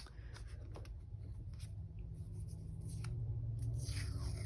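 Soft scratching and rustling of paper on a planner page, with scattered light clicks and a scratchier stretch near the end, over a low steady hum.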